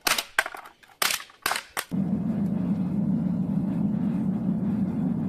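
A hammer striking aluminium drink cans on a wooden stump, five sharp blows in under two seconds as the cans are flattened. About two seconds in it gives way to the steady low noise of a melting furnace burning with cans inside.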